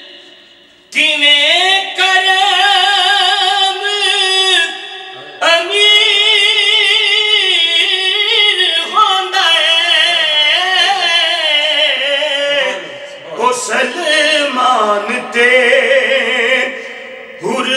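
A man singing Punjabi devotional verse unaccompanied, drawing out long held notes with a wavering vibrato. Short pauses between phrases fall about a second in and near the end.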